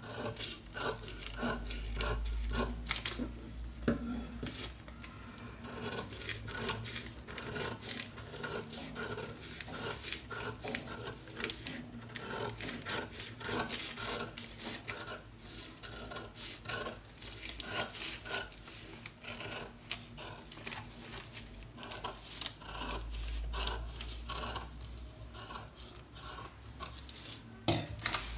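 Scissors cutting through a paper pattern along a curved line: a long run of short snips with paper rustling, and a louder knock near the end.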